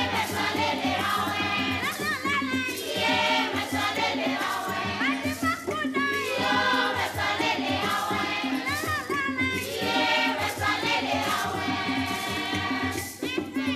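A chorus of young women's voices singing together in phrases, over a steady percussion beat. The singing breaks off briefly about every four seconds between phrases.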